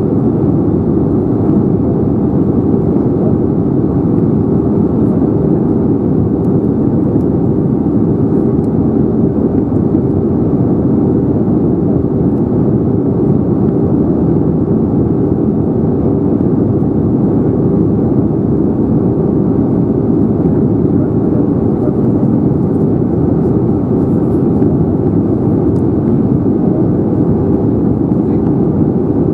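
Steady cabin noise of an Airbus A320neo in descent: a constant low rushing of airflow and engine noise heard inside the passenger cabin.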